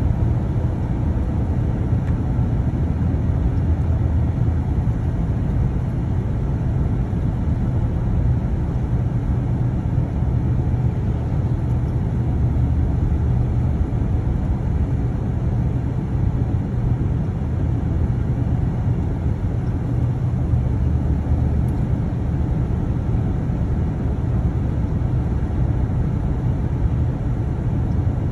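Steady low rumble of a car driving at road speed, heard from inside the cabin, with engine and tyre noise and no changes.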